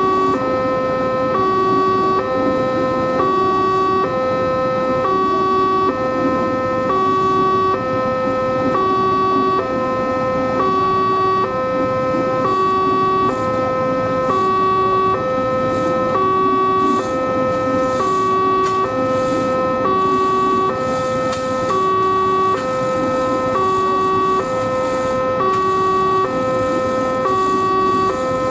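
Railway level-crossing warning alarm sounding: an electronic two-tone signal alternating steadily between a higher and a lower pitch, about one cycle a second, which signals that a train is approaching.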